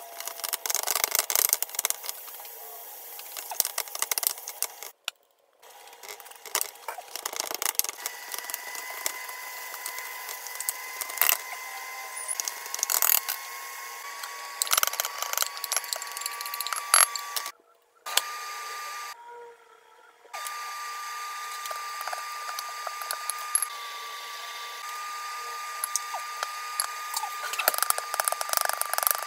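Kitchen handling sounds: a wooden spoon scraping and knocking in a pot, then a bowl being handled and filling being mixed by hand, as a run of short scrapes and clicks. Under them runs a faint steady whine that creeps slightly higher in pitch, and there are a few short silent gaps.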